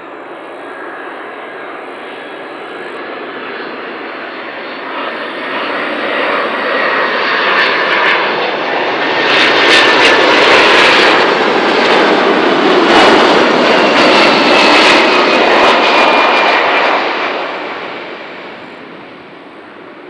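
Boeing 767-300ER's twin turbofan engines on landing approach. The jet noise swells as the airliner comes close, is loudest through the middle, then fades as it descends toward the runway. A faint whine drops slowly in pitch as it passes.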